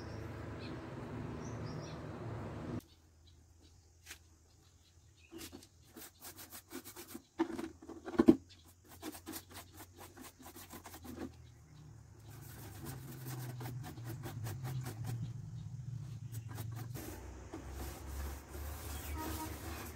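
Hands working a large plastic flower pot: scattered clicks and knocks on the plastic, one much louder knock about eight seconds in, then a pencil rubbing and scratching along the pot's inside wall as a line is marked.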